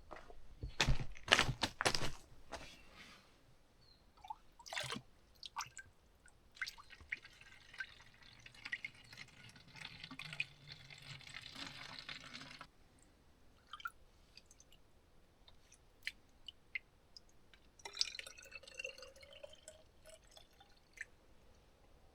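Several sharp knocks and clatter of gear being handled, then liquid poured with a steady splashing hiss that cuts off suddenly. Near the end a short pour rises in pitch as a container fills.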